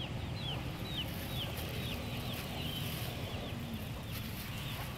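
A bird calling: a run of short, high-pitched falling chirps, about two a second, thinning out after about three seconds, over a steady low background rumble.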